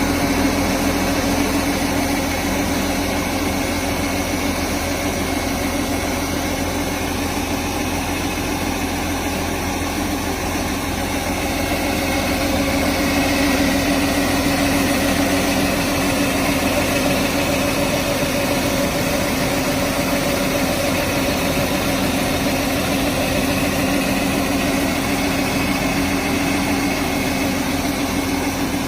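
Combine harvester running steadily: a constant engine and machinery drone with a strong low hum that holds level throughout.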